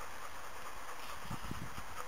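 Steady outdoor background hiss with a short cluster of dull low thumps about a second and a half in.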